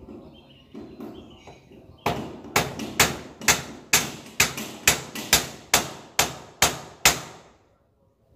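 About a dozen hammer blows on the steel trellis door frame while it is being fitted, a little over two strikes a second. They start about two seconds in and stop about a second before the end, each with a short metallic ring.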